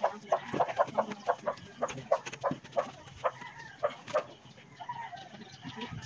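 Chickens clucking in a quick run of short calls, about three or four a second, thinning out near the end.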